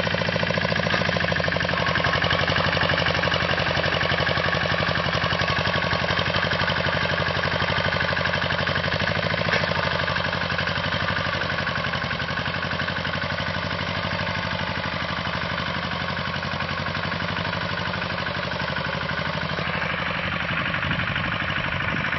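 Grillo 131 walking tractor's 12 hp engine running steadily with a fast, even firing beat as it pulls a plough through the soil.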